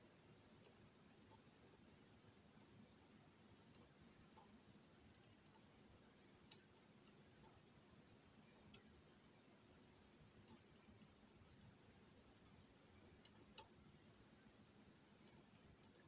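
Faint, scattered metallic clicks of a lock pick working inside a Miwa/Anker 3800 cylinder as its sliders are picked, over near silence. There are a few sharper clicks in the middle and a short cluster near the end.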